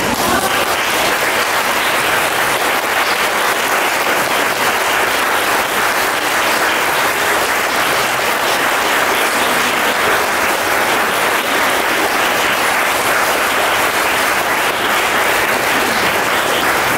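Audience applauding: many hands clapping together in long, steady applause.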